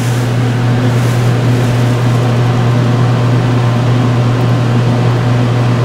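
Steady low machine hum with an even rushing noise over it, from running laboratory equipment.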